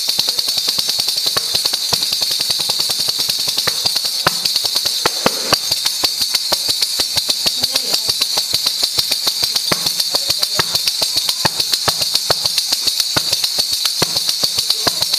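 Asturian pandereta, a hand-played tambourine with metal jingles, played in a fast, steady rhythm. Rapid hand strikes on the skin set the jingles rattling without a break.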